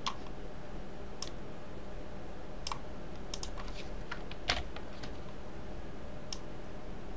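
Computer mouse clicks and keyboard key presses, about a dozen sharp clicks at uneven intervals, the loudest about four and a half seconds in, over a steady low hum.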